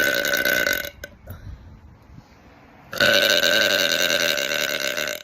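A woman burping loudly in two long, drawn-out burps. The first ends about a second in. The second starts about three seconds in and lasts about two seconds.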